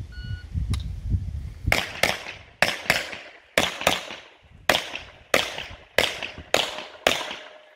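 A shot timer's short start beep, then about eleven semi-automatic pistol shots fired on the move in an IPSC practice run. The first six come in quick pairs, the rest more evenly spaced, and each shot has a short ringing echo.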